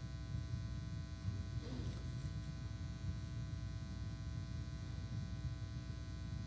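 Steady electrical buzz and hum carried on the sound feed, with many evenly spaced overtones and a low, uneven rumble beneath; a faint brief sound about two seconds in.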